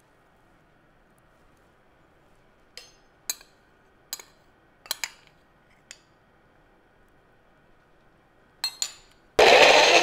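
Several short clinks and knocks of a glass bowl against a plastic blender cup as peanut butter is scraped in, then two knocks as the cup is seated on the base. Near the end a personal bullet-style blender's motor starts suddenly and runs loud and steady.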